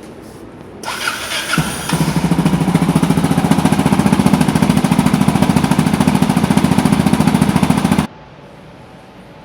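Yamaha XT600Z Ténéré's single-cylinder four-stroke engine starting about a second in, catching, then idling loudly with an even pulsing beat through a LeoVince X3 aftermarket silencer. The sound cuts off suddenly near the end.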